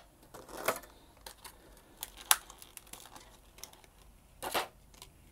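Clear plastic blister packaging from a Pokémon tin being handled: scattered light crinkles and clicks, with a sharp click about two seconds in and a louder crinkle near the end.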